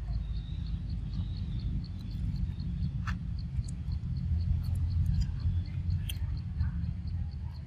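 An insect chirping steadily in a fast, even rhythm of about four high chirps a second, over a continuous low rumble, with a few sharp clicks about three and six seconds in.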